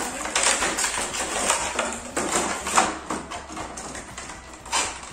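Thin clear plastic packaging tray crackling and clicking as a small plastic toy vehicle is pried out of it, in a dense run of irregular crackles and snaps.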